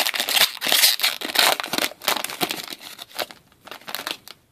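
Foil wrapper of a Panini Crown Royale hockey card pack being torn open and crinkled by hand: a dense crackle that thins out after about two seconds.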